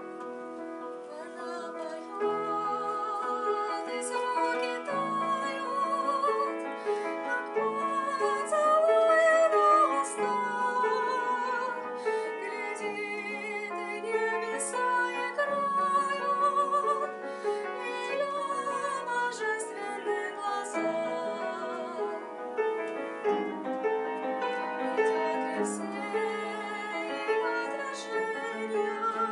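Soprano singing with vibrato over grand piano accompaniment in a classical art song; the voice enters about two seconds in over the piano.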